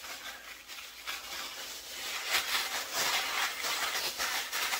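Rustling and crinkling of packaging wrapping as it is pulled off and handled. It grows louder about two seconds in.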